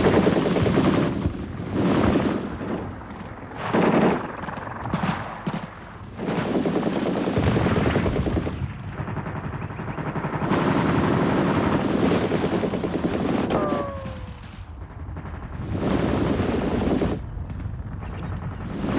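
Bursts of automatic gunfire, several long loud stretches with brief lulls between them. A short falling whine cuts through about two-thirds of the way in.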